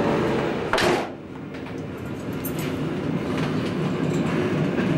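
Steady running noise of the Blauer Blitz, a 1950s ÖBB diesel railcar. Just before the one-second mark a door bangs shut, and the noise drops sharply, then slowly builds again.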